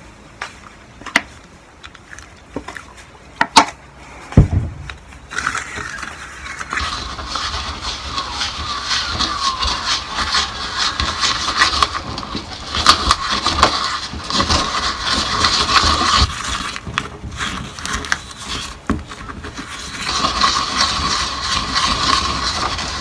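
A wooden paddle pop stick stirring wet concrete mix in a plastic cup: a continuous scraping from about five seconds in, after a few sharp knocks.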